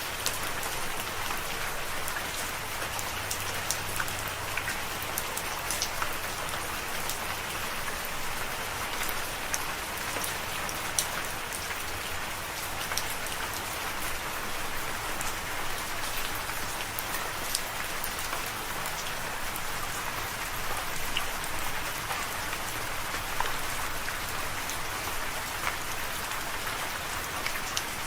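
Steady rain falling, a continuous hiss with many individual drops ticking sharply close by throughout.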